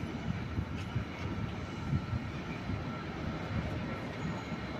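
A train running, heard as a steady low rumble with a faint high whine over it.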